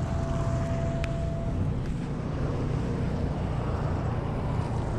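Boat motor running steadily with a low rumble, and wind noise on the microphone.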